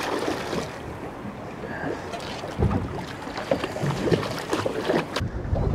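Large hooked trout thrashing and splashing at the surface beside a boat while it is being netted, over a steady wash of wind and water. A heavier splash comes about two and a half seconds in.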